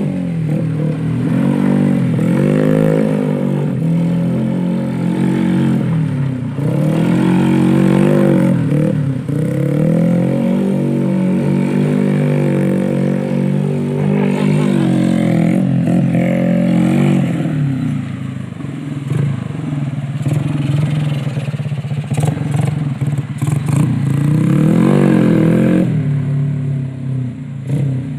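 Old trail motorcycle's engine revving up and down over and over as it is ridden in tight turns and slides on dirt, the pitch rising and falling every second or two.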